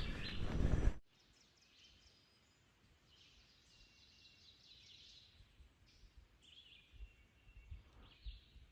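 Crunching footsteps with a bird chirping, cut off abruptly about a second in, then quiet woodland with several birds chirping and calling faintly.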